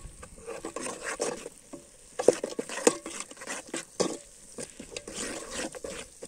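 Metal spoon stirring and scraping thick fish-curry masala around a metal pot over a wood fire, with irregular knocks of the spoon against the pot and the masala sizzling underneath.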